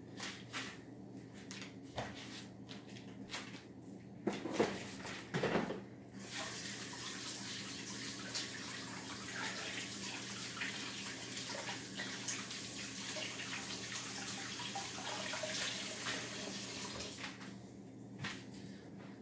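A few light knocks and a short squeak, then a tap is turned on and water runs steadily for about ten seconds before it is shut off.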